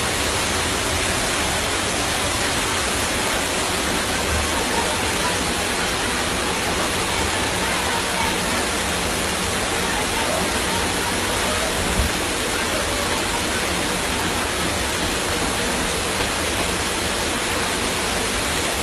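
Floodwater rushing, a steady even noise of flowing water, with one brief knock about twelve seconds in.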